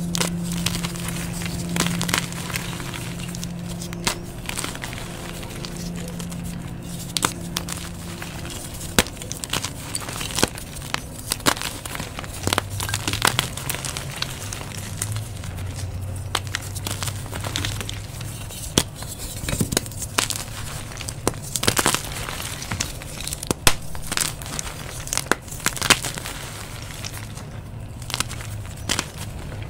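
Hands crushing and crumbling blocks of gym chalk into powder: a steady run of irregular soft crunches and crackles as the chalk breaks up.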